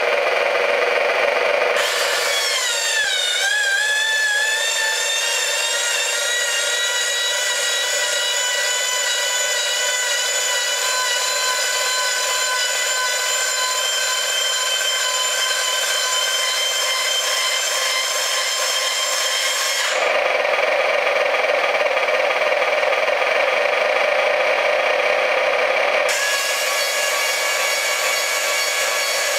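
Electric tipping motor of an RC tipper trailer running as the tipper body lifts. A rough buzz gives way about two seconds in to a steady, high whine that sags in pitch as it takes the load. Around two-thirds of the way through it turns rougher and buzzier for several seconds, then the whine returns.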